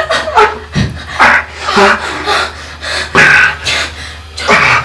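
A woman's voice in short, loud breathy bursts, some with pitch.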